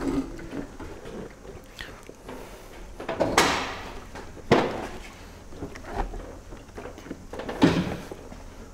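Four separate knocks and clunks from a rider settling onto a parked Harley-Davidson Street Glide and moving it on its suspension, engine off. The sharpest knock comes about four and a half seconds in.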